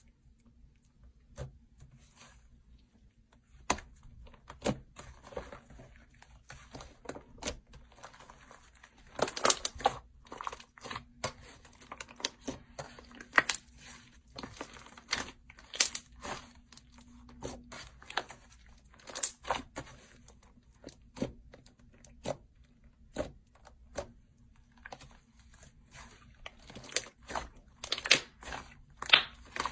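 Slime being pressed and poked by hand, giving irregular crackling pops and clicks, with thicker clusters of crackles now and then.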